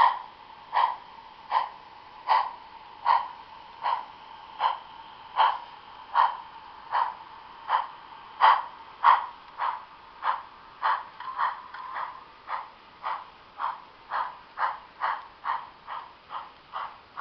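Model steam locomotive's simulated chuffing, a steady rhythmic chuff that quickens from a little over one a second to more than two a second as the 2-8-0 Consolidation picks up speed.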